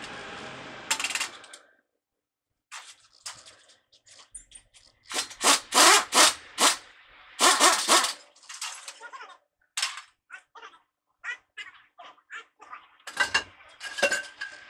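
Irregular sharp metal clanks and knocks as a truck wheel hub is worked off its axle with a hub puller, loudest in the middle stretch.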